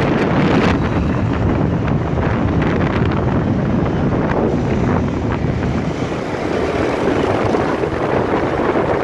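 Wind buffeting the microphone of a phone carried on a moving motorcycle, over the bike's steady engine and road noise.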